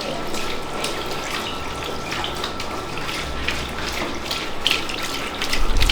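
Water running from a tap and splashing into a wash basin, with many small clicks and splashes through it. It grows louder near the end.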